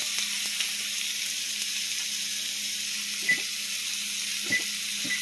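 Steak and onions sizzling steadily in a frying pan, over a low steady hum. A few short electronic beeps from the Kenmore range's timer buttons being pressed sound about three seconds in and twice near the end.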